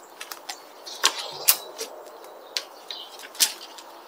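Scattered sharp snaps and cracks of dry twigs and thin branches being handled and broken, the loudest about a second and a half in and again near the end.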